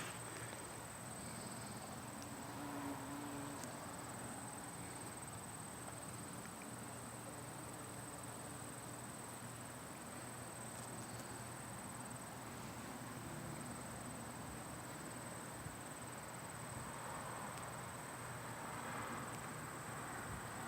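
Faint, steady, high-pitched chorus of crickets trilling without a break, over a soft outdoor hiss.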